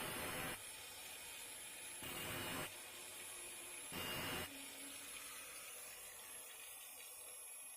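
Saw teeth being sharpened: three short grinding passes of about half a second each, about two seconds apart, over a steady faint hiss.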